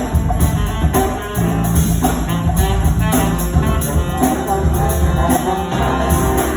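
High school jazz band playing live, with a drum kit and a full ensemble keeping a steady beat.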